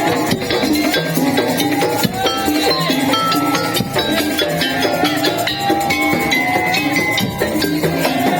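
Instrumental passage of a live music ensemble: short pitched melodic notes over steady percussion, with a bright bell-like metallic beat and a shaker rhythm.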